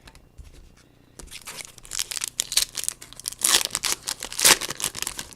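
Foil wrapper of a Topps Chrome trading-card pack crinkling as it is torn open, a dense run of sharp crackles starting about a second in.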